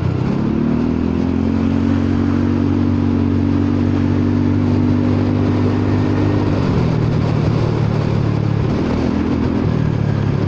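Honda Forza 300 scooter's single-cylinder engine pulling under throttle. It rises in pitch just after the start, holds steady for about six seconds, then drops as the throttle eases, with a brief pull again near the end. Wind and road noise run throughout.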